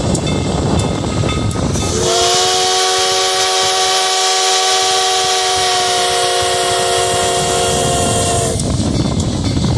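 Steam locomotive's chime whistle blowing one long blast: several notes sounding together, starting about two seconds in with a short upward swoop and held for about six seconds. The moving train's hiss and rumble fill the time before and after it.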